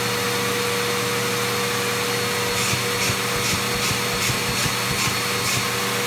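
Vacuum cleaner running steadily. In the second half a rhythmic rasp comes through, about two or three strokes a second, as the nozzle is worked back and forth over the fabric couch cushions.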